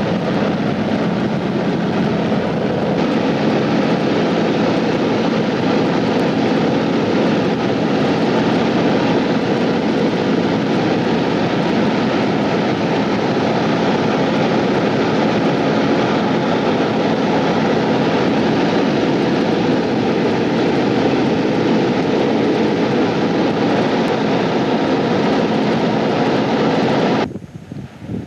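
Propeller airplane engine running at a steady drone, loud and unchanging, cutting off suddenly about 27 seconds in.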